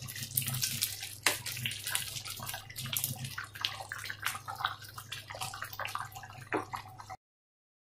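Wooden spatula stirring soupy vegetable khichuri in an aluminium pot: wet sloshing and squelching with many light knocks and clicks, over a steady low hum. The sound cuts off shortly before the end.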